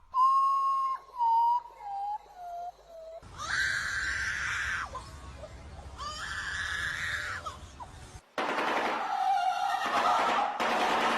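Bird calls: a run of clear whistled notes, each a little lower than the last, then two harsh, screeching calls, then a busy, scratchy chatter.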